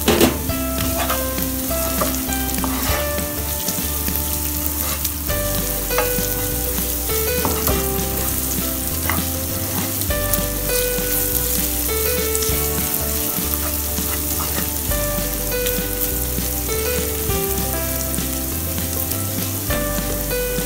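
Minced garlic, chili flakes and ground pepper sizzling in hot oil in a nonstick frying pan, stirred and scraped with a wooden spatula, with a sharp knock right at the start.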